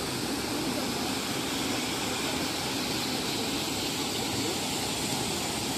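Water pouring over a small stepped concrete weir: a steady, even rush of falling water.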